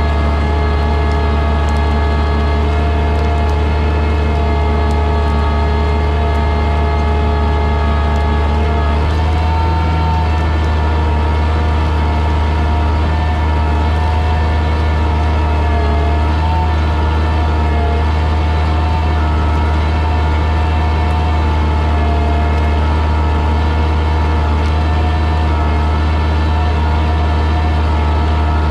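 Oliver 77 tractor's six-cylinder engine running steadily under load while pulling a plow through the soil. Its note shifts slightly about nine seconds in.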